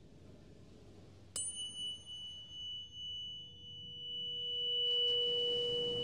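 A tuning fork struck once, about a second in, with a bright click, then ringing as a high, steady tone whose loudness wavers. A second, lower tone comes in halfway and swells toward the end, under a rush of surf washing in.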